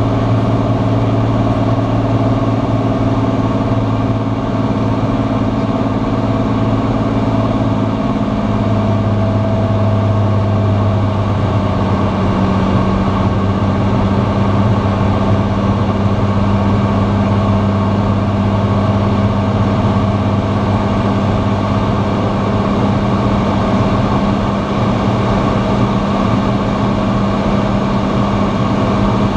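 Cirrus SR20's six-cylinder piston engine and propeller droning steadily in flight, heard inside the cockpit with wind noise. About ten seconds in, the drone drops to a lower pitch as engine speed comes down, then holds steady.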